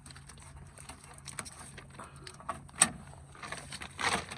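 Light clicks and knocks of door parts and tools being handled, with one sharp click a little under three seconds in and a brief rustle or scrape just after four seconds.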